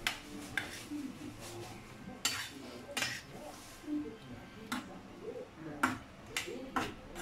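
A metal spoon stirring chopped chayote and chicken in a stainless steel frying pan, scraping and clinking against the pan in a string of short strokes at an uneven pace, about one or two a second.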